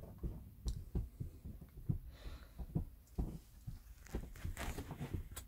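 Irregular soft low thumps and small knocks, a few each second, with light rustling: handling noise and movement inside a small caravan.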